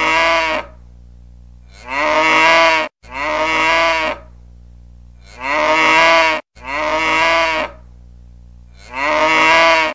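Cow mooing, played as a ringtone: about six moos of roughly a second each, mostly in close pairs, with a faint steady low hum between them.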